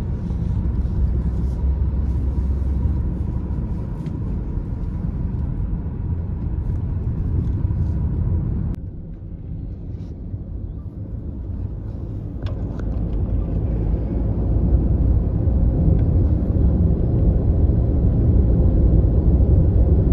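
Low, steady rumble of a car driving, heard from inside the cabin: road and engine noise. It drops in level suddenly about nine seconds in, then grows louder again toward the end.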